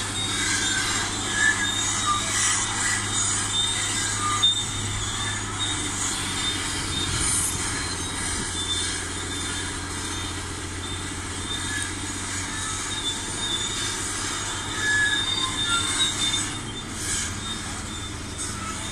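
Caterpillar hydraulic excavator travelling on its steel crawler tracks: a steady low diesel drone under high metallic squeaks from the track undercarriage.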